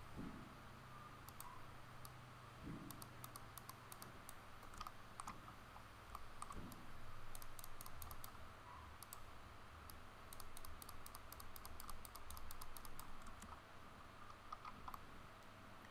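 Faint clicking of a computer mouse and keyboard, coming in quick runs through the middle, over a low steady hum.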